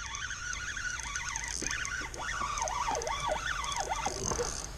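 Fishing reel whirring as the line runs on it, its pitch sliding up and down again and again.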